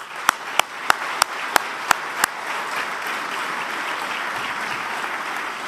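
Audience applauding steadily. For the first two seconds or so, one person's claps stand out loud and close, about three a second, over the crowd's applause.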